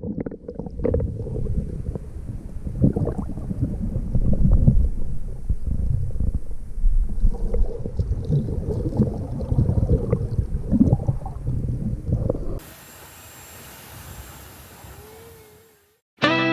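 Wind buffeting the microphone: a heavy, irregular, gusting rumble. About twelve seconds in it cuts off abruptly to a much quieter steady hiss.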